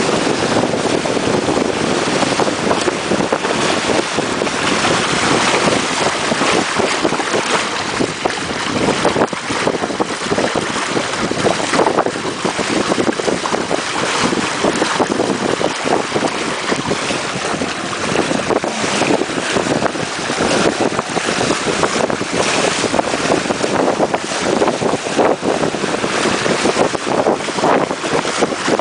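Water rushing and splashing along the hulls of a Warren Lightcraft Little Wing sailing trimaran going to windward, mixed with steady wind buffeting the microphone. A continuous, loud rush with small irregular splashes throughout.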